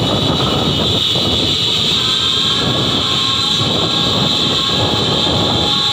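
Wind buffeting the microphone and traffic noise from a moving car, a steady rough rush with a constant high hiss. A few faint steady tones join about two seconds in.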